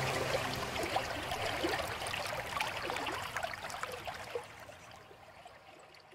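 Running water trickling and babbling, fading out gradually.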